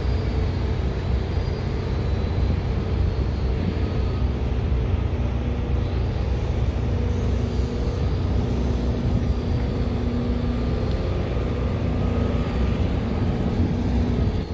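A large road vehicle's engine running steadily close by: a continuous low rumble with a steady hum, over street noise.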